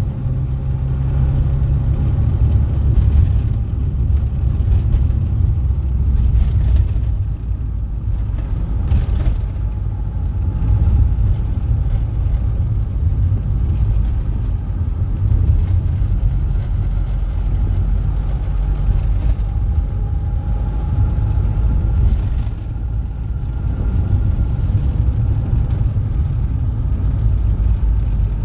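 A vehicle driving along a town street, heard from on board: a steady low rumble of engine and road noise.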